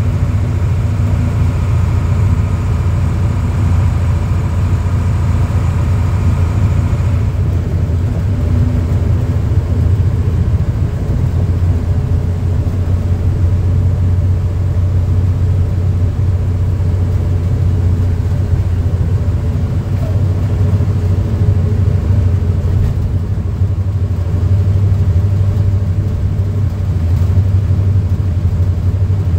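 Caterpillar 3208 V8 turbodiesel of a 1987 Ford C8000 fire engine running as the truck drives along, heard from inside the cab: a steady low drone, with a higher whine over it that cuts out about seven seconds in.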